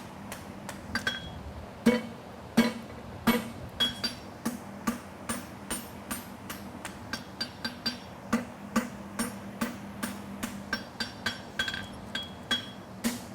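Blacksmith's hammer striking hot horseshoe steel on an anvil in quick, irregular blows, about two or three a second, each with a short metallic ring. The heaviest strikes come about two to three seconds in.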